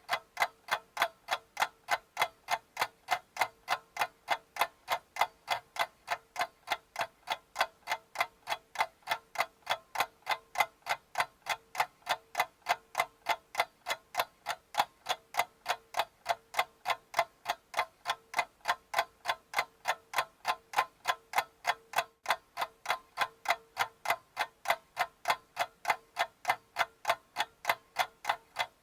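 Clock ticking steadily and quickly, about three ticks a second, over a faint steady hum.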